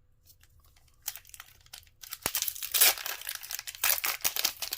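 Foil wrapper of a Pokémon card booster pack crinkling and tearing as it is opened. The rustling starts about a second in and gets louder after about two seconds, with one sharp click partway through.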